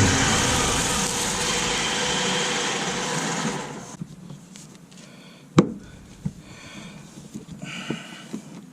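A motor vehicle's engine running loudly for about four seconds, then falling away. A few sharp clicks follow in the quiet.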